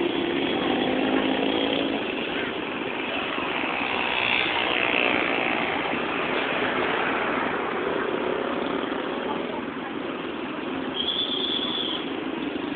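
Busy street noise: motorcycle and car engines with people talking, heard through a low-quality phone microphone. A short high tone sounds about eleven seconds in.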